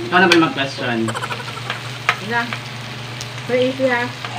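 Shrimp and pork sizzling on a tabletop grill pan, an even frying hiss with a couple of sharp utensil clicks.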